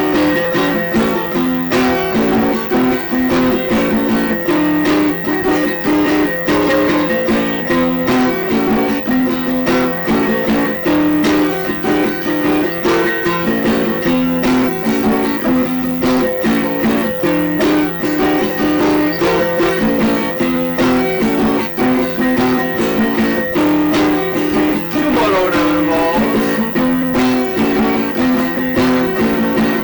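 Guitar music: a plucked guitar repeats a short riff over a steady held low note, with one falling, sliding note about 25 seconds in.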